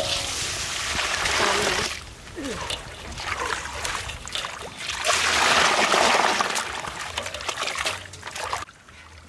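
Water splashing and trickling in bursts of a few seconds, easing off near the end.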